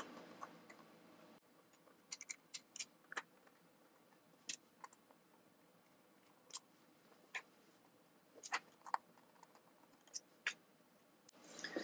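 Faint, scattered clicks and ticks of a T10 Torx screwdriver working out the screws that hold the SuperDrive optical drive in a 21.5-inch iMac.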